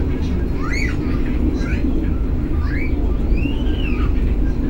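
Argo Wilis passenger train running along the track, a steady rumble heard from inside the coach. Over it, a string of short high chirps that rise and fall, about one every second.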